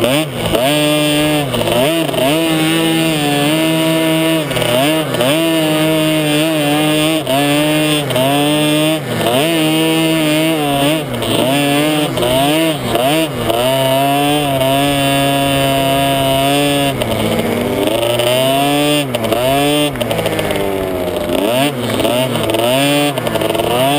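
Small-displacement two-stroke youth dirt bike engine, heard from on board, revving hard under load with its pitch rising and falling about once a second as the throttle is worked. Around two-thirds of the way through the revs drop low for a moment, then climb again.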